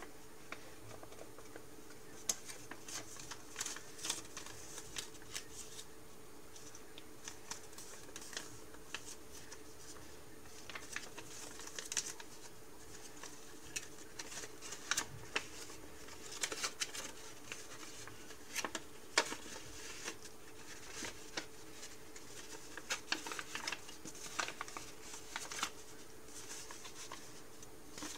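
Sheet of origami paper being folded and creased by hand: irregular crinkles and crackles as the paper is bent and pressed, over a faint steady hum.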